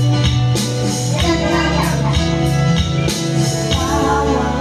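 A woman singing into a microphone over loud backing music with a steady bass. The vocal line comes in phrases over the accompaniment.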